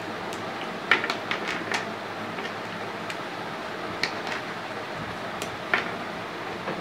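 Small plastic flower-shaped building blocks clicking as they are pressed together and handled: a quick cluster of clicks about a second in, then single clicks near four and near six seconds, over a steady background hiss.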